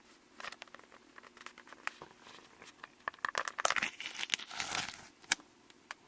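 Close-miked ASMR eating sounds: a run of sharp crackles and clicks from biting and chewing, sparse at first and thickest about three to four seconds in.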